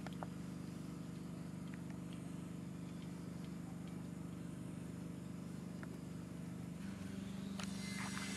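A steady low engine hum from a motor running nearby, with a few faint light clicks. Near the end the hum steps up slightly in pitch and gets a little louder.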